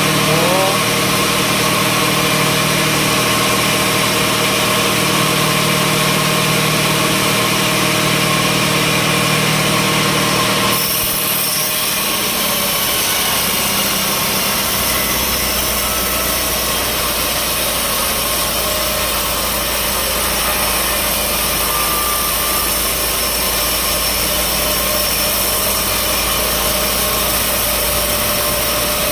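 Sawmill machinery running steadily with an engine-like drone. The sound changes abruptly about eleven seconds in.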